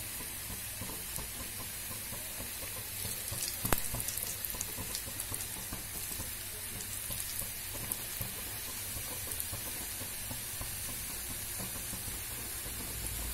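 Strips of maida khasta dough deep-frying in oil in a kadai on a low flame: a steady sizzle with scattered crackles and one louder sharp tick about four seconds in.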